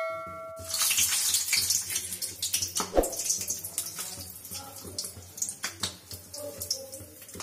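A short bell chime dies away in the first second, then large green chillies sizzle and crackle in hot oil in a steel kadhai as they are laid in by hand.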